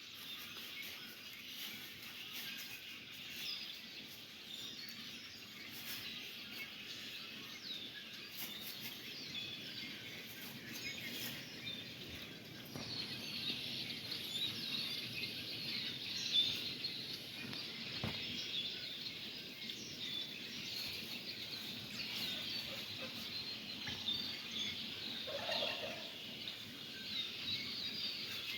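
Many birds chirping and twittering at once, the calls overlapping continuously and growing busier partway through. A single brief, lower-pitched call stands out near the end.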